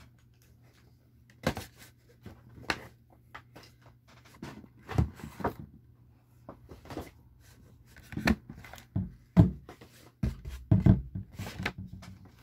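Boxed toy packaging being handled: cardboard window boxes and carded plastic packs picked up, moved and set down, a string of irregular knocks and scrapes, the sharpest a little over nine seconds in and a busy cluster near the end.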